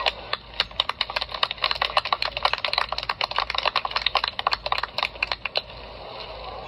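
Scattered applause from a small group, sharp individual claps that die away about five and a half seconds in.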